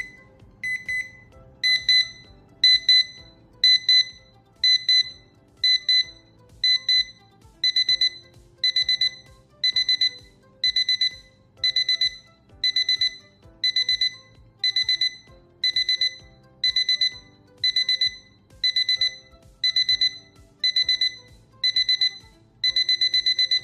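Ajanta table alarm clock's electronic alarm beeping: short bursts of rapid high beeps about once a second, the bursts growing fuller as it goes, until near the end it sounds without a break.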